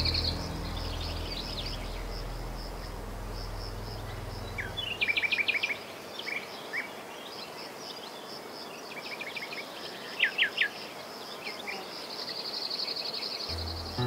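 Outdoor evening ambience: a steady, fast-pulsing insect trill with short clusters of quick, falling bird chirps about five seconds in and again around nine to ten seconds. Soft ambient music fades out in the first few seconds and comes back near the end.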